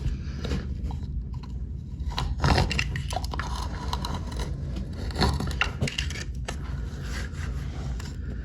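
Utility knife blade cutting and scraping old silicone caulk out of a shower seam in irregular strokes, a few louder ones about two and a half and five seconds in, over a low steady hum.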